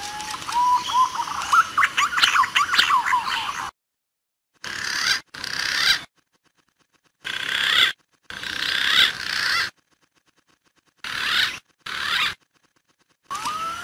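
Recorded calls of green pigeons (punai) played as a bird-trapping lure: overlapping whistled calls with rising and falling glides, opening with a rising whistle. A longer run of calling is followed by short bursts, each cut off abruptly by dead silence.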